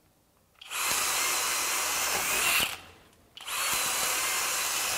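FLEX 24V hammer drill driver (FX1271T) in turbo mode, boring a 7/8-inch self-feeding auger bit into a pressure-treated 4x4. The drill runs in two steady bursts of about two seconds each, with a short pause between them. Each burst swells a little just before it stops.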